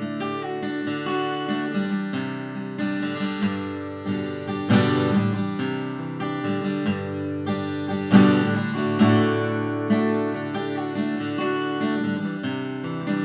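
Lowden jumbo steel-string acoustic guitar strummed with a flat pick, a few open chords ringing out, with repeated strokes and several chord changes.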